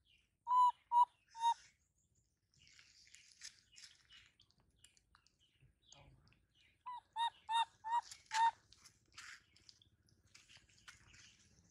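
Baby macaque giving short, squeaky calls: three quick ones about half a second in, then a run of five or six between about seven and eight and a half seconds in.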